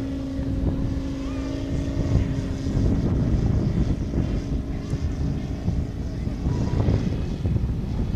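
Five-cylinder radial engine of a 1/3-scale RC Stearman biplane droning in flight, a steady note that fades away about halfway through as the plane moves off, over wind rumbling on the microphone.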